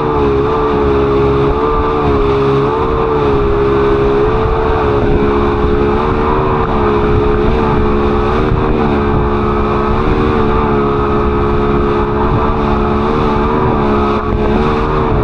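Speedboat engine running steadily at speed, its note rising and dipping slightly over a constant rumble.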